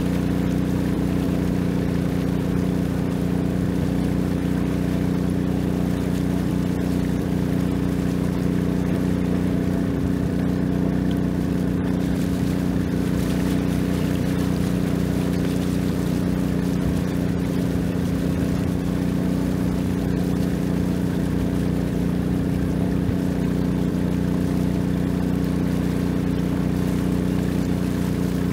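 Long-tail boat engine running at a constant speed, a steady low drone that does not change.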